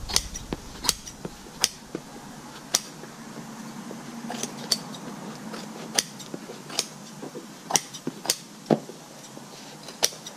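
Scissors snipping through upholstery fabric, trimming and notching the excess around a sun visor's edge: a string of short, sharp snips at an irregular pace, about one or two a second.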